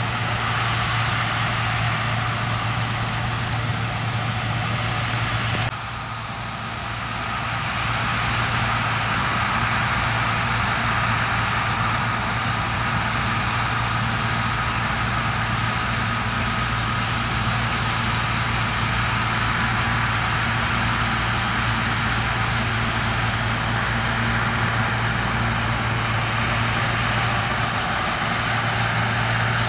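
John Deere T670i combine harvester running steadily at work in wheat, a constant engine hum under the hiss of its machinery. The sound drops abruptly about six seconds in, then builds back up over a couple of seconds.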